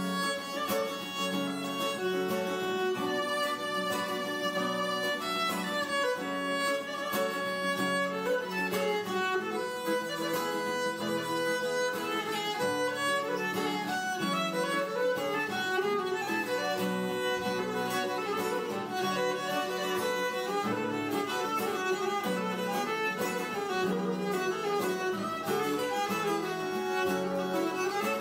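Background music: a violin melody over string accompaniment.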